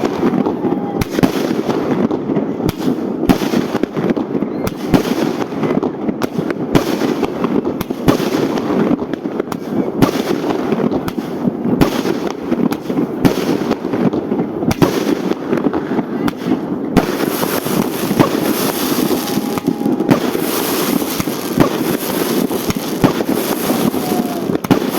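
Fireworks going off in a dense, continuous barrage of many overlapping bangs and cracks. Past the middle, a brighter hissing crackle joins in.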